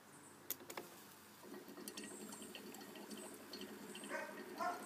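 A homemade wet HHO electrolysis cell under power, with the gas bubbling through the water in its bubbler jar: faint bubbling and fizzing. It starts about a second and a half in and slowly grows, after a couple of clicks at the start.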